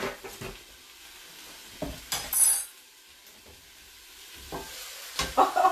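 Jackfruit cheesesteak filling sizzling faintly in a skillet covered by an upturned pan, with kitchenware knocks and clatter: a brief loud scrape about two seconds in and a run of knocks near the end.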